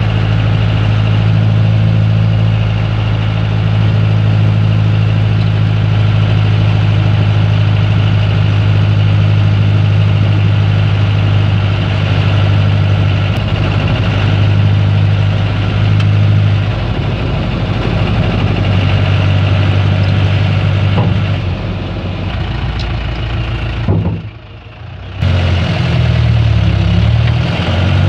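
Vehicle engine and road noise heard from inside the cabin while driving: a steady low drone. Near the end it drops away sharply for about a second, then comes back with its pitch shifting up and down.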